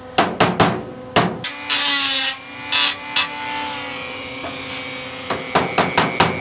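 Hand hammer striking the sheet-steel edge of a VW bus Westfalia sales flap: a few scattered blows and a couple of short scraping noises, then steady hammering at about four blows a second from about five seconds in, with the metal ringing faintly.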